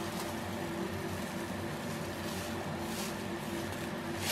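A steady low hum and hiss, with a few faint soft rushes of sodium hydroxide flakes poured into water in a plastic bucket.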